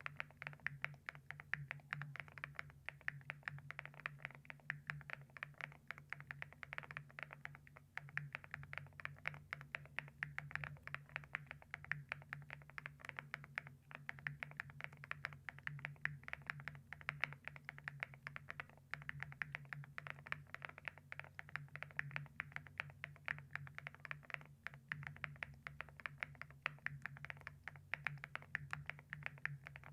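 Fast, continuous typing on a mechanical keyboard fitted with ceramic keycaps: a dense run of sharp clacks over a steady low hum.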